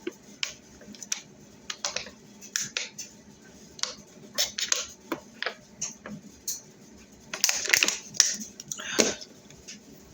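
Kitchenware being handled: scattered light clicks and clinks of dishes and utensils, with louder clattering about seven and a half seconds in and again about nine seconds in.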